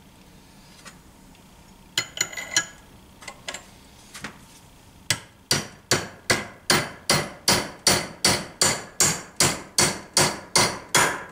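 Hammer striking the top of a length of pipe used as a driver to tap a bearing onto a Motobecane AV7 moped engine part, metal on metal. A few light clicks come first, then about five seconds in the hammer settles into steady blows, about three a second.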